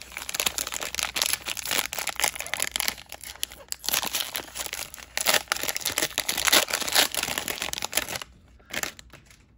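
Plastic wrapper of a Mosaic football card cello pack being torn and pulled open by hand: dense crinkling and tearing that stops about eight seconds in, with one last brief rustle.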